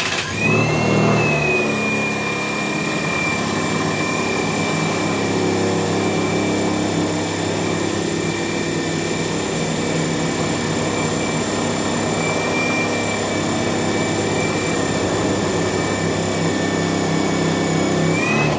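Cordless drill spinning a teak post at full trigger on a table-saw lathe, with the table saw blade cutting the turning wood. The drill's whine rises as it spins up, holds steady, then falls and stops at the end, over a loud continuous cutting noise.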